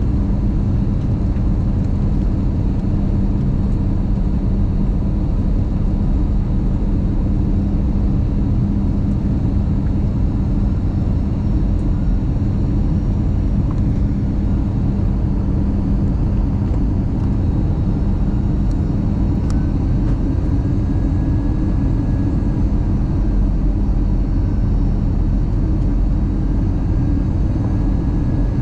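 Steady cabin noise inside an Airbus A320 descending on approach: a low rumble of engines and airflow, with a steady low hum underneath that fades out about halfway through.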